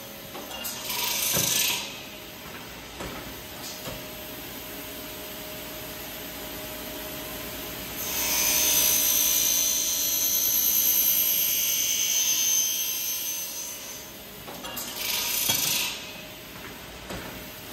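Eisele automatic circular saw working through a cycle over the steady whine of its running motor. A short hiss of compressed air comes from the pneumatic clamps about a second in. From about eight seconds in the blade cuts through the stock for around five seconds. Near the end comes another short burst of air hiss with a few clicks.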